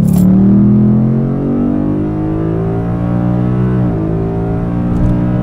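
Ford Mustang GT's 5.0 L Coyote V8 at wide-open throttle, heard from inside the cabin through a Pypes Pype-Bomb axle-back exhaust, in which the factory muffler is replaced by straight pipe. The engine note climbs steadily in pitch toward redline, dips sharply at an upshift about four seconds in, then holds.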